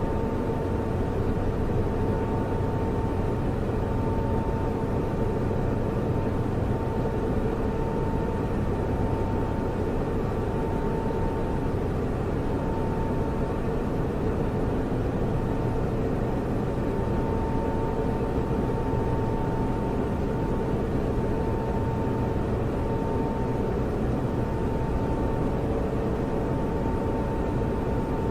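Computer server running: a steady whirring hum with a constant high tone over it.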